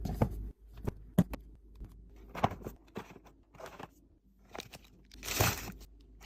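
Plastic packaging crinkling in short handfuls, with a few sharp clicks and taps of items being handled and set down; the longest crinkle comes near the end.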